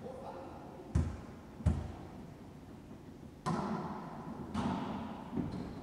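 A volleyball being hit by hands and rebounding off the walls of an enclosed racquetball court in a wallyball rally: about five sharp smacks, each with a short echo.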